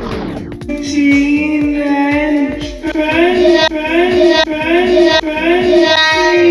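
Music with a high singing voice: a long held note, then a run of short rising-and-falling notes over a steady beat.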